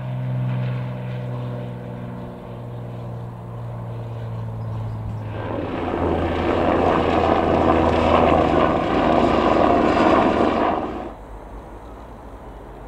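Light single-engine propeller aircraft's piston engine droning steadily overhead. About five seconds in, a much louder rushing noise of a closer passing aircraft takes over, then stops suddenly near the end.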